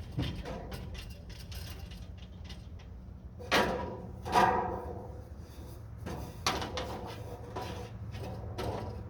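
Handling and work noise: a run of knocks and rattles, with two louder metallic clanks that ring briefly, about three and a half and four and a half seconds in, and a smaller clank a couple of seconds later.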